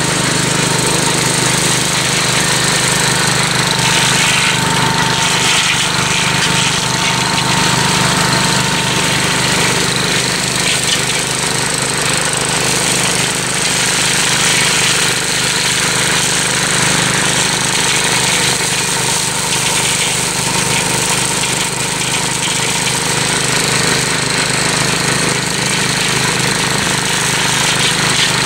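Engine of a Gravely Commercial 12 walk-behind tractor running steadily under load, driving its brush hog cutter through a thick pricker bush without bogging down.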